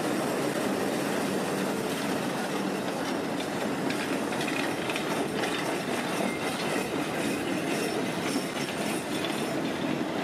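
An articulated electric tram running past on street rails: a steady rumble of wheels and running gear with light clacking midway.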